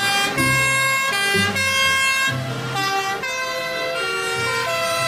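Fire engine sirens on a convoy of several trucks. The two-tone horns step back and forth between pitches, and more than one sounds at once.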